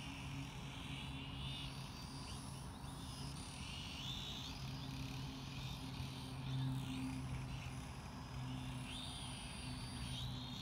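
UdiR/C Petrel FPV drone flying low, its motors and propellers buzzing with a whine that rises and falls in pitch again and again.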